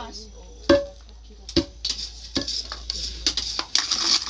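Long wooden pestle pounding coffee beans in a stone mortar to make coffee powder: dull knocks about every 0.8 seconds, with a gritty rustle between the strokes in the second half.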